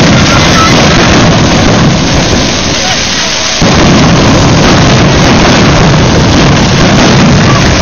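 Dense barrage of fireworks and firecrackers going off together, the bangs so close they merge into one continuous loud crackle. It eases slightly about two seconds in, then surges back to full loudness about a second and a half later.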